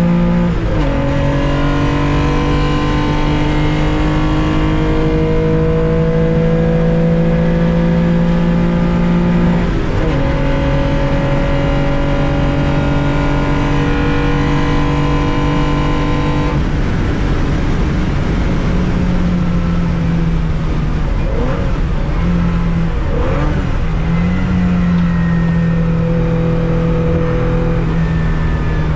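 Onboard sound of a 1965 Porsche 911 2.0's air-cooled flat-six under hard acceleration, the engine note climbing steadily through the gears with an upshift just after the start and another about ten seconds in. About two-thirds of the way through it comes off full throttle and settles to a lower, steadier note.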